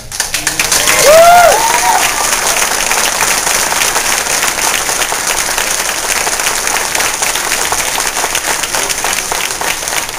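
Audience applauding steadily. A voice gives a couple of short cheering calls about a second in, as the applause swells.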